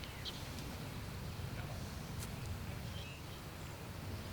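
Faint steady outdoor background noise, a low rumble with an even hiss, with a few faint short high chirps and a faint click about halfway through.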